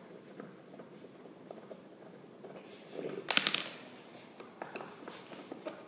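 Screwdriver scraping and ticking against the screws of an old wall receptacle and its cover plate, with a short burst of sharp clicks and clatter about three seconds in and a few single clicks after it.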